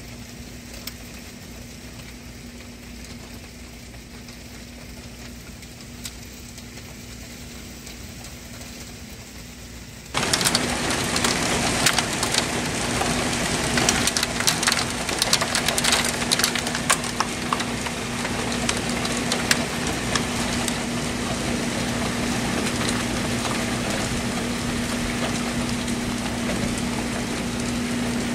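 Heavy graupel pelting lawn, pavement and leaves: a dense hiss of many tiny ticks and clicks, jumping much louder about ten seconds in.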